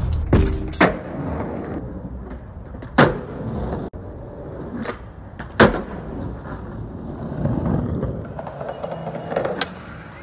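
Skateboard wheels rolling on concrete, broken by sharp clacks of the board popping and landing, about four times.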